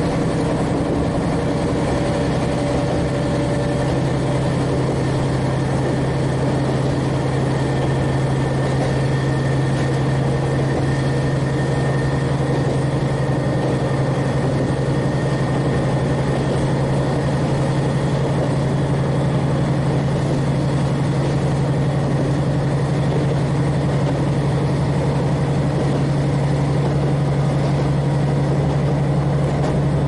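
KiHa 40 diesel railcar's N-DMF13HZI six-cylinder diesel engine running at a steady speed, a constant low drone heard from inside the car.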